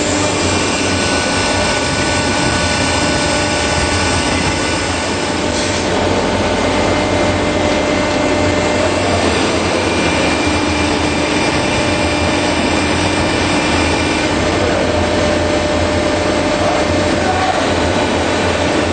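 Automatic baler running: a steady, loud mechanical drone with a few held whining tones, and a single brief knock about six seconds in.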